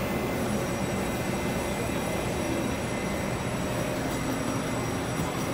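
Steady rumble and hum of an electric locomotive at the platform, with several thin, steady high-pitched whines, over the murmur of a crowd in an underground station.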